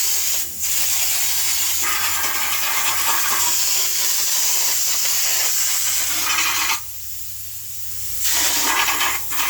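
Air-powered spray gun hissing steadily as it sprays coating, stopping for about a second and a half near the end, then spraying again.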